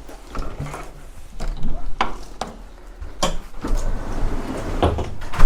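Several separate sharp knocks and clunks over a low rumble, the loudest right at the end.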